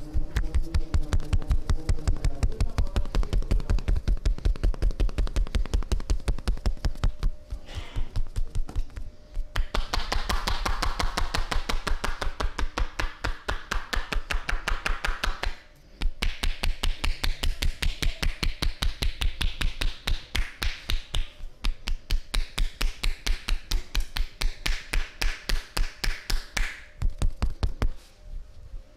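Percussive massage: hands tapping and slapping on the body in a fast, even rhythm of several strikes a second, with a few brief pauses.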